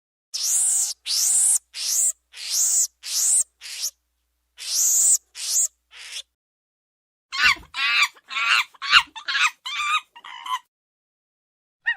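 Monkey calls: a series of about nine short, high screeches, each rising then falling in pitch, with a pause after the sixth. After a gap of about a second comes a quicker run of lower calls.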